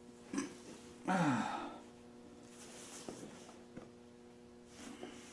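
A man lets out a loud sigh about a second in, his voice falling in pitch, followed by quieter breathing. Light clicks from metal parts being handled and a steady low hum run underneath.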